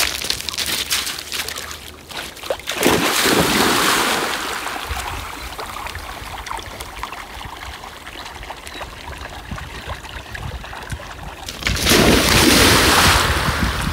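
Black Labrador retriever crunching over shore pebbles, then splashing into a lake about three seconds in and swimming with a steady sound of moving water. Near the end it splashes loudly through the shallows.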